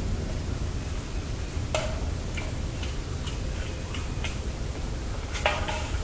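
A handful of sharp, unevenly spaced clicks that sound like metal clinking, about six of them, the loudest near the end, over a steady low background rumble. Their source is unexplained: no metal is known to be in the area.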